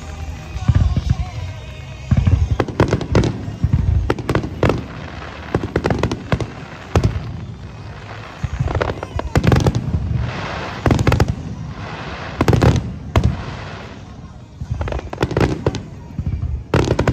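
Aerial fireworks shells bursting one after another: more than a dozen loud booms and crackling bursts, irregularly spaced about a second or two apart, over music from the show's loudspeakers.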